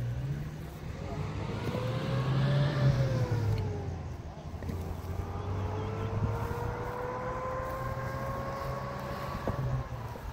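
A motor vehicle engine accelerating: its pitch climbs, drops about three seconds in as it shifts gear, then climbs slowly again under a steady low hum.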